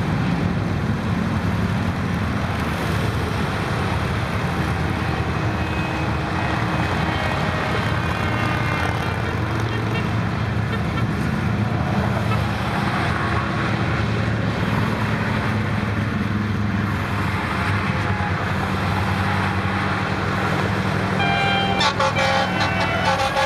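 Interstate traffic passing below: motorcycles, cars and trucks, a steady rush of tyres with a low engine hum. Near the end a loud air horn blasts and a siren starts to rise from an approaching fire engine.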